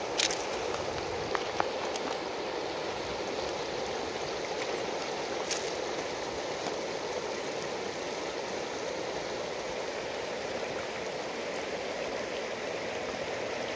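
River water running steadily over shallow gravel and stones, a continuous rush of flowing water, with a couple of faint clicks.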